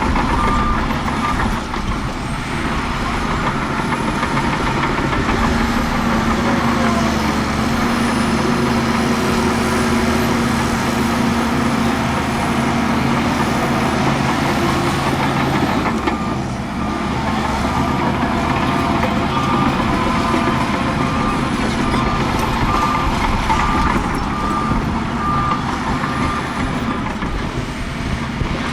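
Heavy diesel earthmoving machinery running hard under load, its engine pitch rising and holding for several seconds mid-way. A reversing alarm beeps steadily at the start and again from about halfway until near the end.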